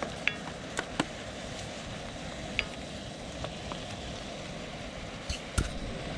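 Ground beef frying in a cast iron skillet, a steady sizzle, with a few sharp clicks of a wooden spoon knocking against the pan as it is stirred.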